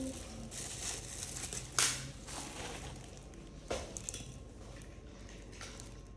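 Packaging being handled and crinkled while a replacement phone screen is unboxed, with two sharp clicks, about two seconds in and near the four-second mark, the first the louder.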